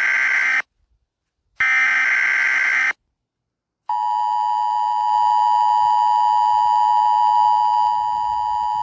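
NOAA Weather Radio emergency alert signalling. First come two bursts of SAME digital header data, a harsh buzzing screech about a second long each with silence between them. Then, about four seconds in, the steady single-pitch warning alarm tone begins. Together they mark a severe thunderstorm warning about to be read.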